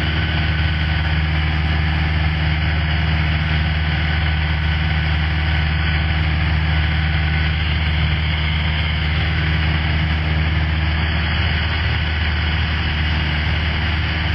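Cessna 172 Skyhawk's piston engine and propeller droning steadily in cruise flight, with a constant low hum under a broad rush of noise.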